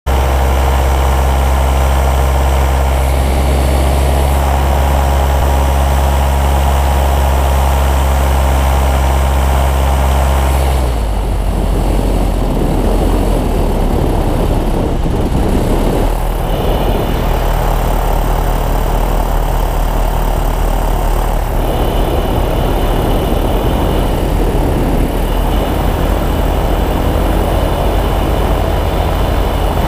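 Airflow rushing over an action camera's microphone in paraglider flight: a loud, steady rumbling wind noise that changes character abruptly about eleven seconds in.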